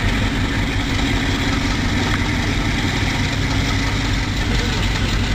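DF4DK diesel-electric locomotive's V16 diesel engine running with a steady low drone as the locomotive moves slowly past.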